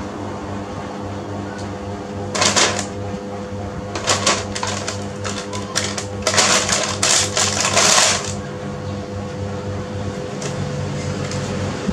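Clear plastic sheet crinkling and a plastic baby walker rattling as a baby monkey climbs through it, in several bursts between about two and eight seconds in, over a steady low hum.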